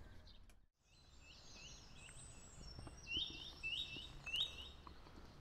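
Songbird singing, a string of high chirps with three loud repeated notes in the middle, over a low steady outdoor background. The sound drops out briefly about half a second in.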